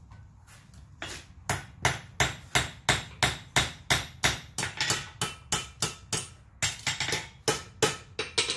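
Blacksmith's hand hammer striking a steel bottle-opener blank on an anvil in a steady rhythm of about three blows a second, flattening the curled hook.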